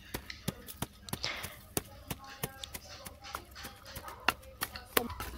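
A rapid, irregular run of light clicks and taps, like small hard objects being handled.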